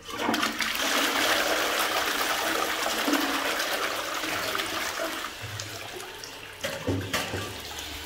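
A 2009 Vaal Hibiscus front-flush toilet flushing. Water rushes into the bowl all at once, stays strong for about five seconds and then eases off, with a couple of sharp knocks near the end.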